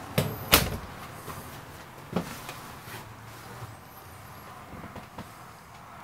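An interior door in the motorhome being shut: two sharp knocks in quick succession within the first second, then a single lighter knock about two seconds in.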